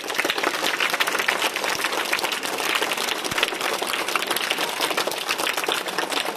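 Crowd of schoolchildren applauding: many hands clapping in a dense, steady patter.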